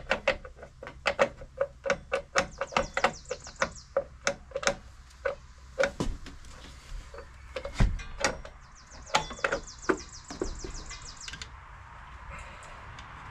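Hand ratchet wrench working bolts on a scooter's rear gear case: a run of metallic clicks and knocks, two or three a second, with two spells of fast ratchet ticking and one heavier thump about eight seconds in. It goes quiet for the last couple of seconds.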